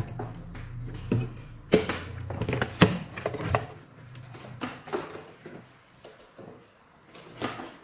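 A few light clicks and knocks of handling on a workbench, the clearest about a second and a half in and again near three seconds, over a faint low hum.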